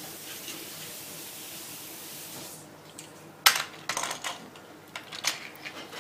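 A steady rushing hiss that cuts off about two and a half seconds in, followed by a few sharp clicks and knocks.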